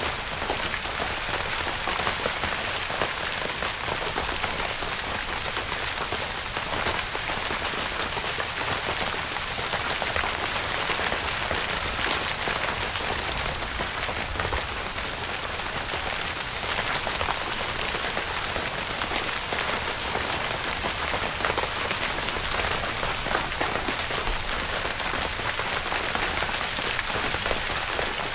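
Steady rain falling on a tent, many small drop impacts blending into an even hiss with no letup.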